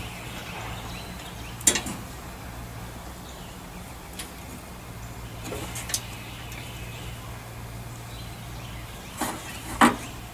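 Scattered sharp knocks and clanks as a game hoist and its rigging are worked by hand to lift an outboard motor. There is one about two seconds in, a few more around the middle, and a loudest pair near the end, over a steady low hum.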